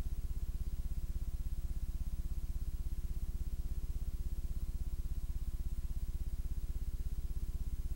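Steady low electrical hum with overtones and a fast, even pulsing: mains hum in the playback or transfer chain, with no programme sound, on a blank blue-screen stretch of tape.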